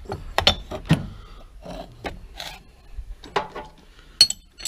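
Steel parts of a screwless machinist's vise being handled: metal knocks and clinks with some scraping. The loudest knocks come about half a second and one second in, and a sharp click comes near the end.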